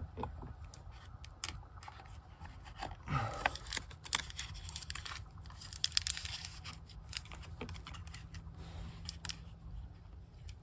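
Rustling, scraping and small clicks of materials being handled by hand, busiest from about three to six seconds in.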